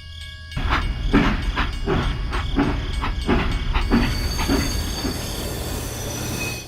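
A machine chugging with regular knocks, about two to three a second, over a low rumble. After about four seconds the knocks fade into a steadier hiss.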